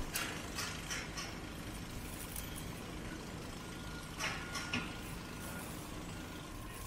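A parked fire engine's diesel engine idling steadily, with a few short clicks and knocks just after the start and again about four seconds in.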